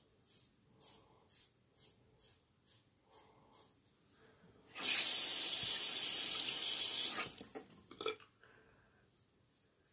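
Merkur 37C slant safety razor scraping through stubble in short strokes, about two a second; then a bathroom tap runs loudly for about two and a half seconds, with a few small knocks as it shuts off, before faint razor strokes resume near the end.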